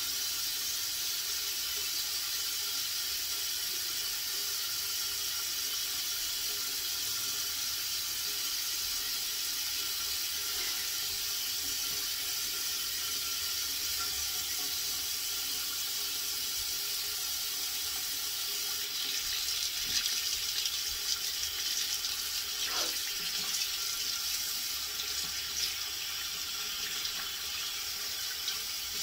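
Water running steadily, with a few brief louder sounds in the last third.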